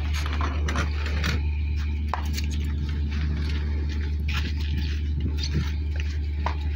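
Ship's engine running with a steady low hum, with scattered light clicks and knocks over it.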